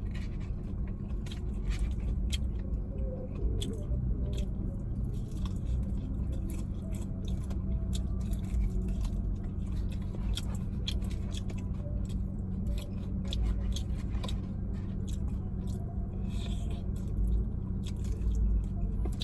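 A person chewing and biting into fried chicken wings, with many small wet clicks and smacks, over a steady low hum inside a car.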